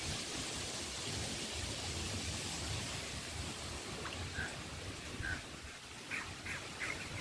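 Wind buffeting the microphone, a gusty low rumble with a steady hiss, over open floodwater. A few short high chirps come in over the last three seconds.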